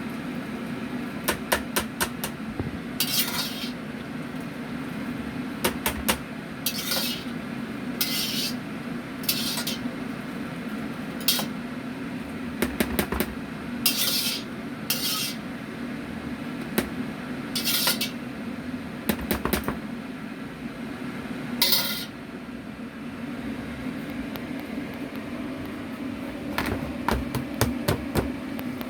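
Kitchen utensils and dishes clattering, with sharp clicks and short scrapes every second or two over a steady low hum.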